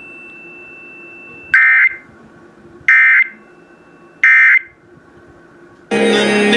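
Three short bursts of EAS digital data tones, about a second and a half apart: the End of Message code that closes an Emergency Alert System warning. Near the end a louder, fuller buzzing tone starts and lasts about a second.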